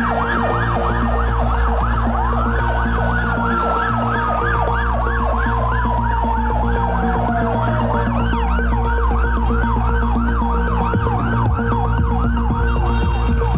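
Emergency-vehicle sirens, one sweeping rapidly up and down about three times a second while another long tone slowly falls in pitch and fades out a few seconds in, over a low rumble of traffic.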